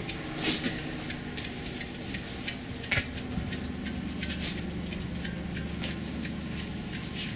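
Light, irregular ticking and clicking, a few times a second, as a beagle puppy's claws tap on a concrete porch while it walks about. A faint steady hum lies underneath.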